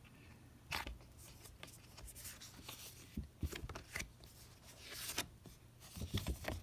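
Handling noise of a cardboard box set and its cards: scattered light taps, clicks and rubbing rustles as they are moved and sorted, with a sharper knock about a second in and busier clusters in the middle and near the end.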